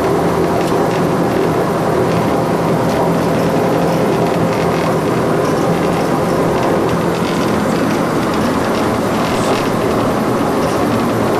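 Loud, steady drone on the flight deck of an SRN4 cross-Channel hovercraft underway. Its Rolls-Royce Marine Proteus gas turbines and propellers are running, with a constant low hum and faint clatter from the cabin.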